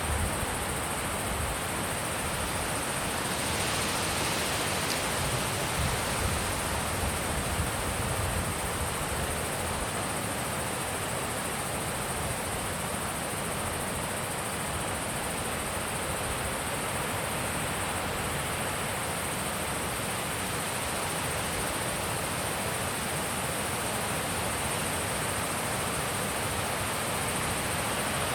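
Steady wind blowing at an open mountain pond, an even rushing noise without gusts or breaks.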